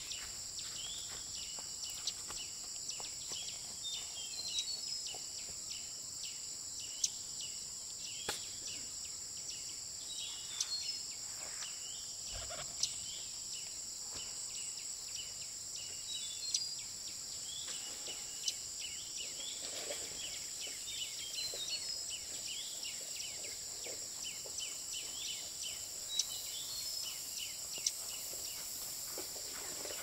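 Insects buzzing steadily at a high pitch, with short bird chirps now and then and scattered sharp clicks and knocks.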